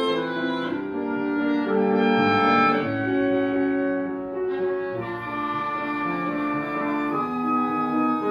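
Woodwind quintet playing classical music live: several wind instruments, clarinet and horn among them, hold overlapping notes that move in slow steps, and a high held note enters about five seconds in.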